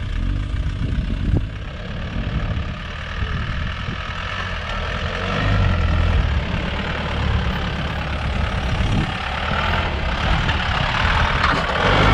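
Nissan Xterra's engine running at low revs as the SUV crawls up a rutted dirt trail, getting louder as it comes close near the end.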